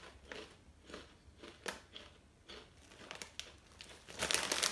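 Faint, irregular crunching of corn chips being chewed, then the chip bag crinkling loudly near the end as it is handled.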